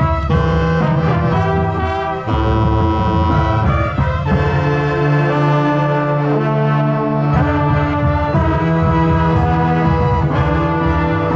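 College marching band playing, heard from inside the wind section: brass and woodwinds hold loud sustained chords that shift to new chords several times.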